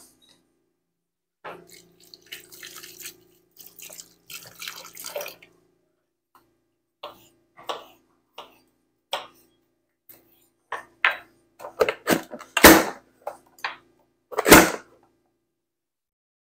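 Kitchen knife cutting a green bell pepper on a wooden cutting board: irregular taps and chops, getting quicker and louder toward the end, with two sharp knocks standing out about 12 and 14 seconds in.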